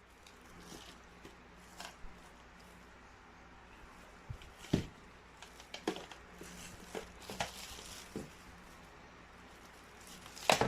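Handling noises: a scattered series of light clicks and knocks, with the loudest knock near the end.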